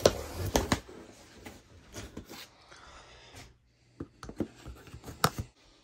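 A hand tool scraping and slicing along the taped seam of a cardboard shipping box. There is a scratchy run with sharp clicks for the first three and a half seconds, then after a brief pause a few more sharp knocks and scrapes on the cardboard.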